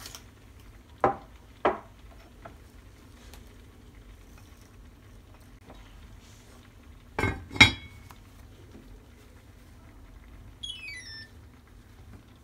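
Heavy enamelled cast-iron lid of a Staub cocotte set down onto the pot with two loud clanks about seven seconds in, after two lighter knocks near the start. Near the end comes a short falling electronic beep.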